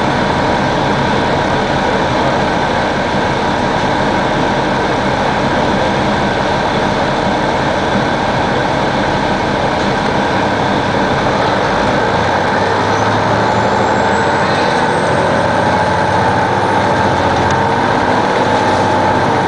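Detroit Diesel Series 60 diesel engine of a 2002 Neoplan AN-460 articulated bus running steadily. About twelve seconds in, the low engine note shifts, and a whine rising in pitch comes in toward the end.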